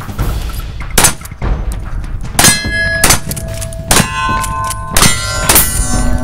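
Pump-action shotguns firing a string of about six or seven blasts, some overlapping, from several shooters on a line. Several shots are followed by a metallic ringing that holds for a moment, each at a different pitch.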